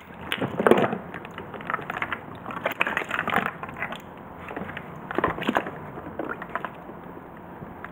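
Ice and plastic bags crunching and crackling in a cooler as a hand shifts largehead hairtail fish about. The crackling comes in irregular spells, about half a second in, around three seconds in and just after five seconds, and dies down near the end.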